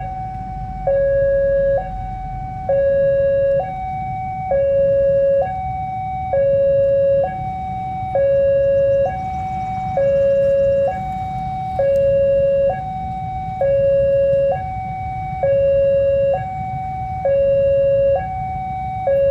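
Railway level-crossing warning alarm sounding a steady hi-lo two-tone alternation, switching about once a second, with the lower tone louder. This is the signal that a train is approaching. Low traffic rumble runs underneath.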